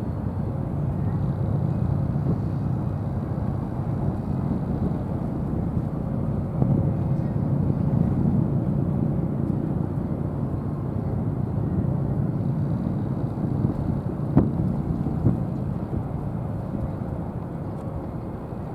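Steady low rumble of a large car ferry's engines and machinery, with a faint steady hum over it and a single sharp click about fourteen seconds in.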